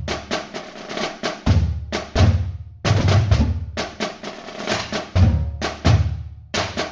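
Music carried by a drum beat: repeated snare-like strikes over heavy, booming bass-drum thumps in a steady pattern.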